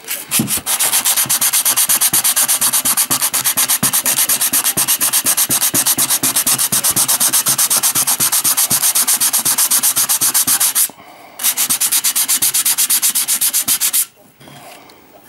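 Hand sanding: sandpaper rubbed in fast, even back-and-forth strokes over a cast-metal part, grinding down partly hardened epoxy metal-repair putty. The strokes pause briefly about eleven seconds in, resume, and stop near the end.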